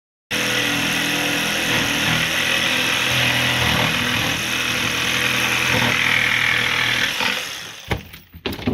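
Power saw cutting through plywood, running steadily and fading out near the end.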